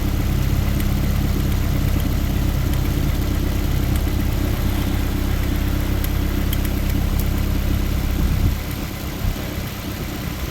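Toyota engine running at idle with BBs being fed into it. About eight and a half seconds in, the running sound drops off sharply and turns uneven.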